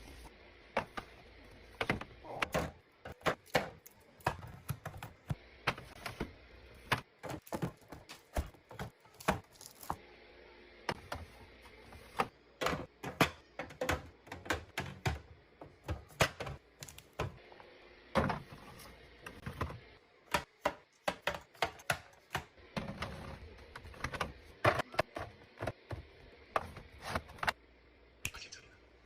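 Plastic and glass food containers and packaging being handled and set down on fridge shelves while restocking: a run of sharp taps, clicks and knocks at irregular intervals.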